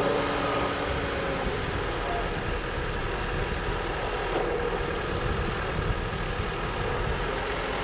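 New Holland tractor's diesel engine running steadily as it drives the loaded forage wagon over a silage heap of chopped grass.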